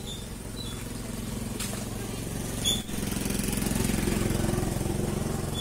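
Motor scooter engine running as it passes along the road, growing louder to about four seconds in and then easing off. A single sharp click a little under three seconds in.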